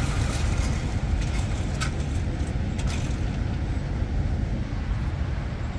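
Steady low mechanical rumble of an indoor range's electric target carrier running the paper target back along the lane.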